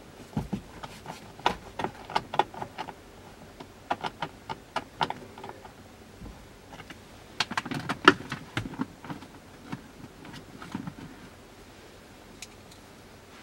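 Sharp, irregular clicks and taps in several bursts: a screwdriver turning self-tapping screws into the plastic cabin air filter cover, with plastic knocks as the cover is handled.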